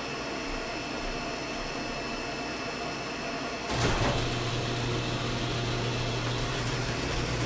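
A flatbed screen-printing press switches on about halfway through with a clunk, then its motor runs with a steady low hum. Before that there is only a steady background hum.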